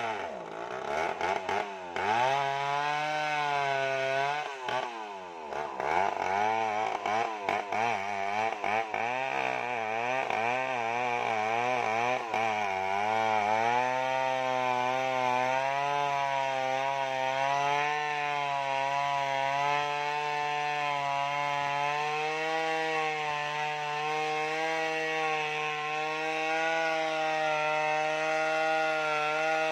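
Stihl 070 chainsaw, a large two-stroke saw, cutting into a huge sengon log under load. Its engine speed dips sharply twice in the first several seconds and wavers up and down quickly as the chain bites. About halfway through it settles into a steady high-pitched run.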